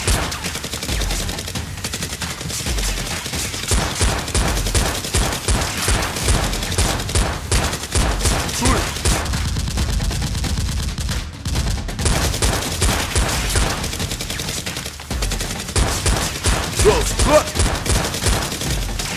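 Rapid automatic gunfire sound effects, dubbed over toy blasters: shot after shot in quick bursts, with a couple of brief breaks.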